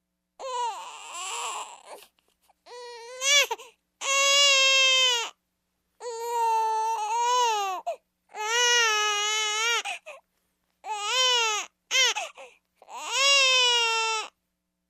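Baby crying: a string of about eight loud wails, each one to two seconds long, with short pauses for breath between them.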